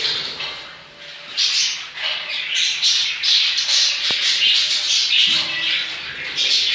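A flock of pet lovebirds squawking and chattering, harsh calls coming one after another in quick succession.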